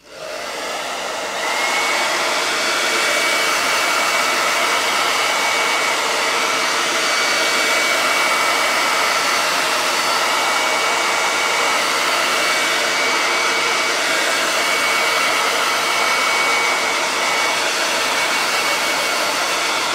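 Handheld hot-air dryer switched on and blowing steadily, reaching full speed within about a second and a half, with a thin steady whine over the rush of air. It is drying a fresh coat of white chalk paint on bare wood.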